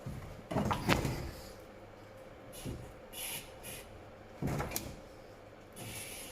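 Clunks and knocks of tools and parts being handled during a car clutch job. There are two louder clusters, one about half a second in and another about four and a half seconds in, with a few lighter knocks between them.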